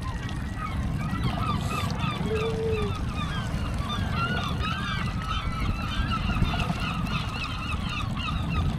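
A dense chorus of many short, repeated animal calls from a rocky islet, with a single longer, arching moan about two and a half seconds in, over a steady low rumble.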